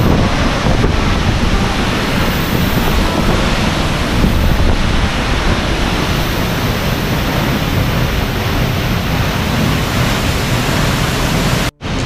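Loud, steady rush of a monsoon waterfall and its spray close by, with wind buffeting the microphone. The sound cuts out for a moment near the end.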